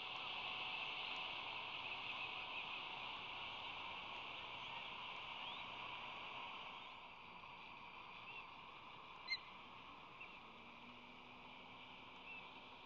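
Six-day-old osprey nestlings giving a few short, thin peeps several seconds apart, over a steady outdoor hiss. There is a single sharp click about nine seconds in.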